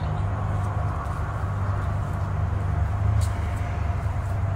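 Steady low mechanical hum, with a faint steady higher tone above it and a couple of faint clicks.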